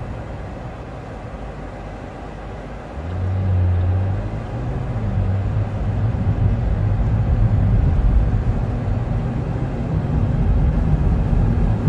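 A car in motion: a steady low rumble. About three seconds in, a low engine hum comes in and the noise grows louder, as if the car is pulling away or speeding up.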